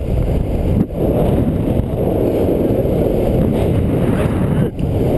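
Rushing wind buffeting the camera's microphone during a paraglider flight. It is a steady, loud, low rush, briefly easing about a second in and again near the end.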